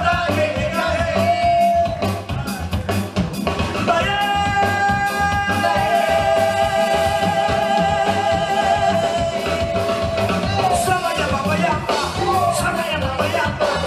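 Live séga music: a man singing over drums, percussion and keyboard, with a steady dance beat. A long note is held from about four to ten seconds in.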